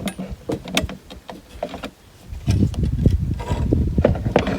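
A plastic zip tie being pulled through its head, giving a run of sharp, irregular clicks. From about halfway on, low rustling and handling noise.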